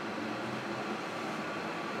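Interior running noise of a JR Kyushu 305 series electric train's motor car under way: a steady rumble of wheels and track with faint steady motor hum tones.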